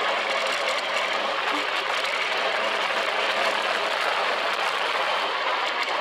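Dune buggy driving over sand dunes: a steady rush of engine and wind noise on an open, exposed microphone, with no distinct engine pitch.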